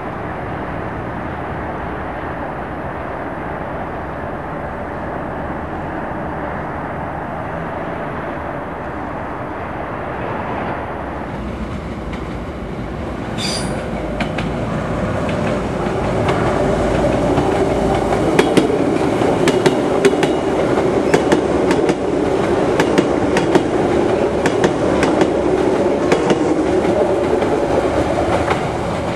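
Metro trains running on open-air track. A steady rumble from a train in motion gives way, about halfway through, to a second train approaching and growing louder. It passes with a quick clickety-clack of its wheels over the rail joints.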